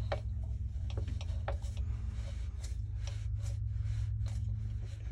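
Short, irregular rubbing and scraping strokes of a cloth wiping excess cement off glued plastic plumbing pipe and fittings, over a steady low hum.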